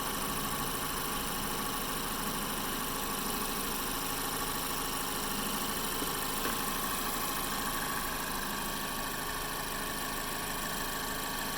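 2012 Mazda 3 Skyactiv four-cylinder engine idling steadily and smoothly, with no belt squeal, after its serpentine belt and stretch-fit water pump belt were replaced.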